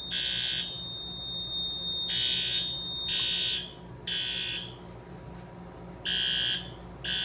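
Fire alarm horns on a Notifier NFS-320C panel's notification circuits sounding the temporal-three evacuation pattern: three half-second blasts, a pause, then three more. The horns are not in sync with each other, because the circuit is set as a strobe circuit with no sync protocol selected. A steady high-pitched tone runs under them and stops about three and a half seconds in.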